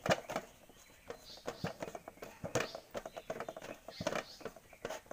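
Hands patting and pressing roti dough flat on a metal tray: a run of irregular soft slaps and taps, the sharpest just after the start.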